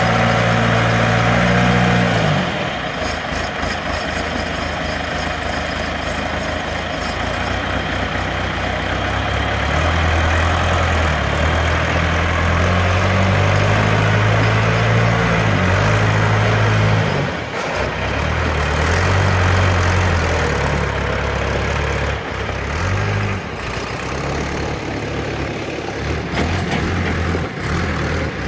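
John Deere 2640 tractor's 4.5-litre four-cylinder diesel engine running. Its speed drops about two seconds in, then rises and falls several times.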